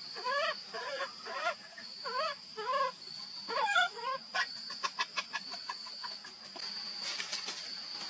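Baby monkey calling: a string of about seven short cries, each rising then falling in pitch, over the first four seconds, followed by a quick run of clicks. A steady high insect buzz runs underneath.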